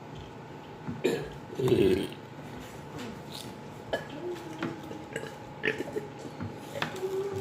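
A person burping after drinking carbonated strawberry soda: a loud burp about a second in, then shorter, quieter burps later on.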